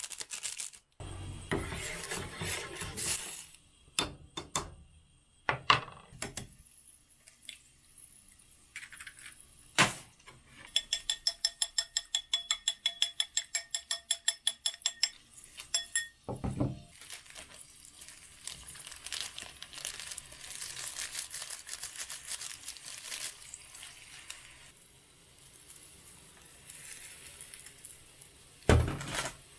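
Cooking noises at a gas stove. A seasoning packet is shaken out over an aluminium pot, with a few sharp knocks. Then an egg is beaten briskly in a ceramic bowl, about seven ringing clinks a second for some five seconds. After that comes a steady hiss from the pot heating on the burner, and a thump near the end.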